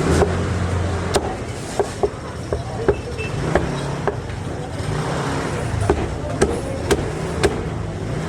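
Cleaver chopping roast meat on a wooden chopping block: about a dozen sharp knocks, irregularly spaced, with a gap of about two seconds in the middle. A steady low rumble runs underneath.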